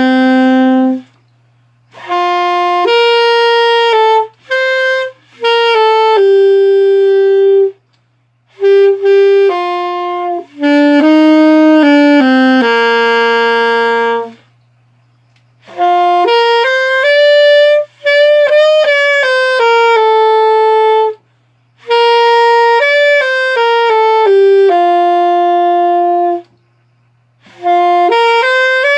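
An unaccompanied solo wind instrument, most like a saxophone, plays a slow melody in phrases of held and sliding notes, with short pauses for breath between phrases.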